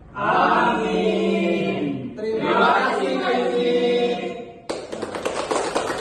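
A small group of men and women singing together in unison without accompaniment, in two phrases, then breaking into hand clapping for the last second or so before it cuts off.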